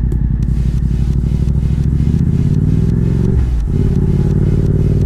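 Yamaha MT-07's parallel-twin engine running under way through an Akrapovič exhaust, heard from the rider's seat; its pitch dips briefly about two-thirds of the way through, then steadies again.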